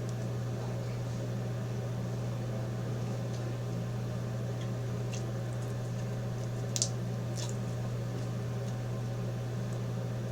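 Slime being mixed by hand, with a few faint brief squishes, over a steady low electrical hum.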